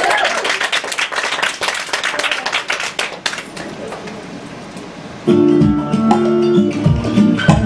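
A small audience applauding for about three seconds, dying away; then, about five seconds in, acoustic guitar music starts abruptly with plucked, repeating notes.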